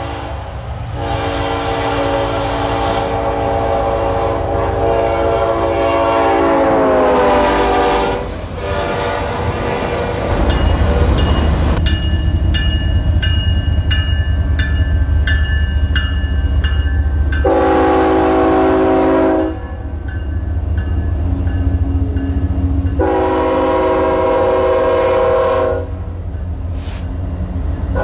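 Diesel freight locomotive horns. A multi-note horn chord sounds as a train approaches and drops in pitch as it passes, about seven seconds in. Then a Norfolk Southern freight passes close with a loud, steady rumble of locomotive engines and wheels and a ringing bell, and two more long horn blasts come near the middle and about three quarters of the way through.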